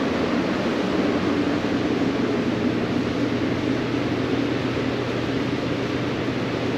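Steady rushing air noise from a large evaporative (swamp) cooler fan.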